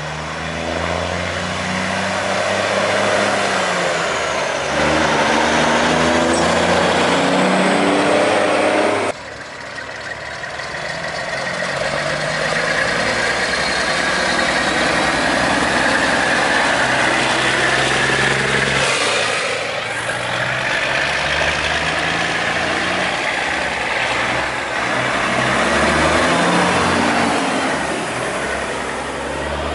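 Diesel engines of big-rig semi tractors driving past one after another. The engine note rises and falls as each truck pulls through and goes by, and the sound changes abruptly about nine seconds in.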